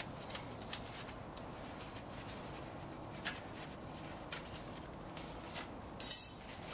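A blue shop towel rubbing and scraping on a brake caliper bracket, wiping dirt from the slide area: faint rubbing with light scratchy ticks. About six seconds in there is a short, sharp, high-pitched crackle, the loudest sound.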